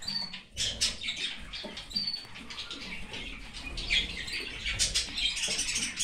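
Small caged songbirds, canaries and finches, chirping in short calls, with two brief high whistled notes about two seconds apart.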